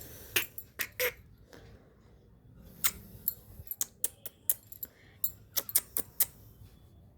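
An irregular series of sharp clicks and clinks, about twenty in all, several close together around the first second and a denser run in the middle and later part.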